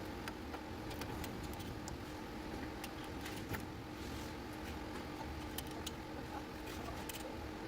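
Scattered light clicks and taps of hand tools and parts being handled during a wheel hub repair, irregular and a few per second, over a steady low mechanical hum.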